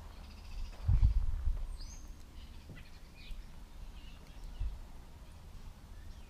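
Outdoor ambience: a low wind rumble on the microphone, with a louder gust about a second in, and a few birds chirping. There is a brief low knock a little past the middle.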